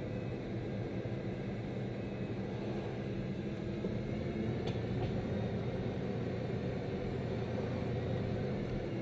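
Bugatti Veyron's quad-turbo W16 engine and tyre noise heard inside the cabin while driving, a steady low rumble that swells slightly midway, with one faint click about four and a half seconds in.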